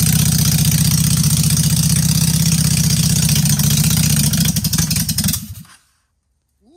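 Honda Shadow Ace V-twin engine, running on a single carburettor, idling with an even pulse. It turns uneven near the end and stops about five and a half seconds in.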